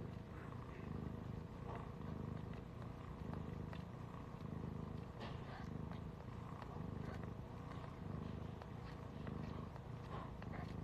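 Siberian mother cat purring steadily while her newborn kittens nurse, a low rumble that swells and fades about once a second with her breathing.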